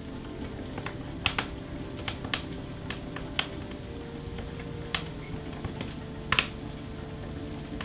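Wood-fired kitchen range with the fire crackling: sharp, irregular pops and snaps, some in quick pairs, over a steady low hum.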